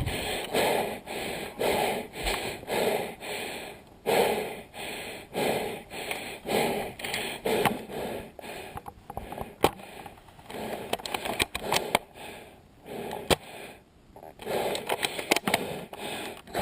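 A player breathing hard and fast close to the microphone, about one and a half breaths a second, out of breath from running. A few sharp clicks come in a brief quieter stretch past the middle.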